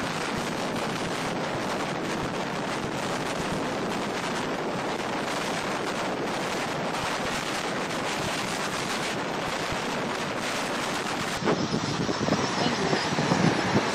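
Steady rushing wind and road noise at highway speed, heard by a microphone on a moving vehicle. About three-quarters of the way through it turns louder and more uneven, with gusty buffeting.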